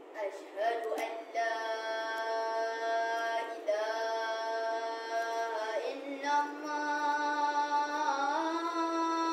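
A boy's voice chanting the azan, the Islamic call to prayer, in long drawn-out melodic notes. Two long held phrases: the first ends with a fall in pitch about six seconds in, and the second starts lower and steps up near the end.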